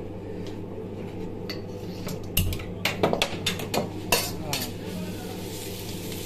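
Metal wok ladle clanking and scraping against a steel wok while stir-frying shredded vegetables, a flurry of sharp knocks about two and a half to four and a half seconds in. A steady low hum runs underneath.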